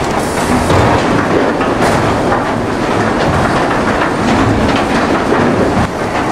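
Log conveyor line running with logs riding the chain, a steady mechanical clatter with frequent knocks.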